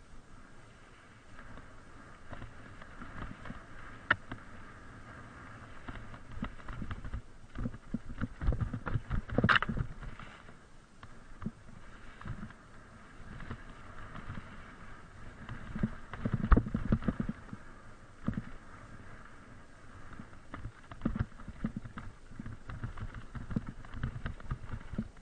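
Mountain bike descending a rough, leaf-covered dirt trail: tyres rolling over the ground and the bike rattling over bumps, with clusters of harder knocks about a third of the way in and again about two-thirds through.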